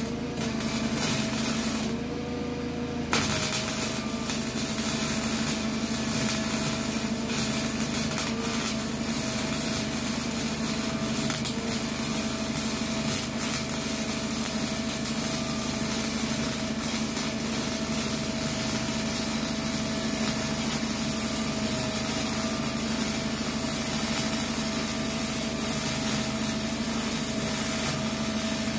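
Small 120-volt wire-feed welder arc crackling and sizzling steadily as it lays a bead on the steel floor of a school bus, over a steady hum. The arc stops about two seconds in and strikes up again about a second later.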